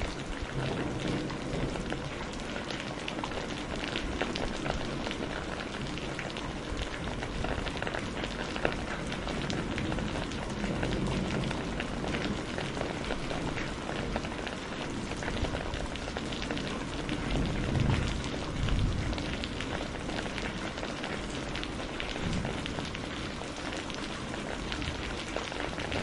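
Heavy rain falling steadily on a hard wet surface: a dense hiss full of small drop splashes. About two-thirds of the way through there is a brief louder, low swell.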